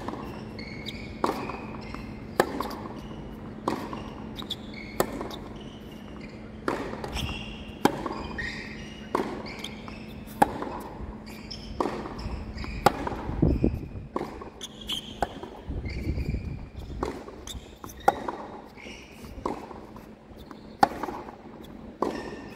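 Tennis baseline rally on a hard court: the ball cracking off racquet strings and bouncing on the court, sharp pops about every second, with short high chirps between some of the hits.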